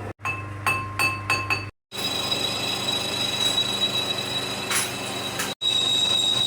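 Four or so sharp metallic clinks that ring briefly. Then a steady machining noise with a high, even whine as the Suzuki Mehran's flywheel face is polished.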